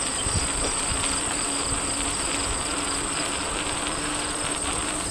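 Steady wind and tyre noise from a bicycle rolling along a concrete path, with a faint steady low hum and a thin, steady high-pitched tone over it.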